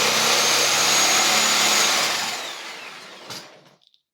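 Electric power tool running steadily at full speed with a high whine, switched off about two seconds in; the motor winds down, its whine falling in pitch, and it ends with a click.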